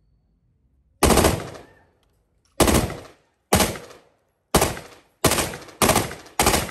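M16 rifle (5.56 mm) firing seven single shots, each with a ringing tail. The first comes about a second in, and the shots come faster toward the end, about half a second apart.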